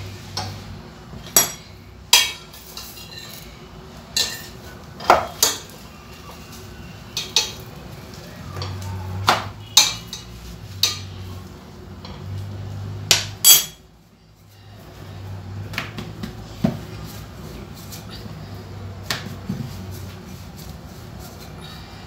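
Irregular sharp clinks and knocks: a metal spoon against a stainless steel frying pan and a wooden rolling pin knocking on the counter as chapati dough is rolled and cooked.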